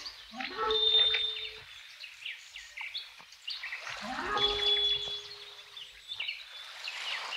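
Birds chirping on a cartoon soundtrack, with a note that rises and then holds, heard twice: once just after the start and again about four seconds in.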